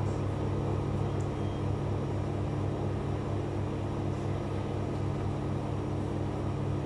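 Steady low machine hum with a couple of held tones, unchanging throughout.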